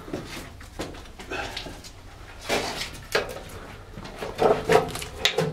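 Heavy rusted steel access door being pushed open, creaking and scraping in several short strokes.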